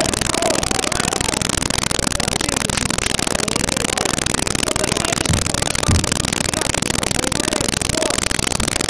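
Loud, even noise of a poor-quality recording that masks nearly everything, with faint voices at the start and end. Two short low thumps come a little past the middle.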